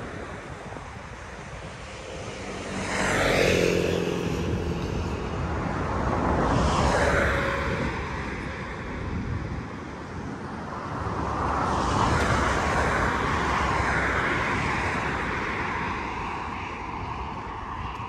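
Road traffic passing close by, one vehicle after another. The first passes about three seconds in with a quick drop in pitch, a second about seven seconds in, and a longer, slower one swells and fades from about eleven to fifteen seconds.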